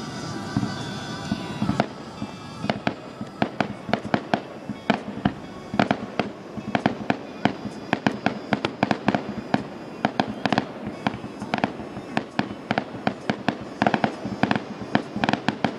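A fireworks display going off in a rapid volley: a dense string of sharp bangs and pops, several a second, starting about two seconds in.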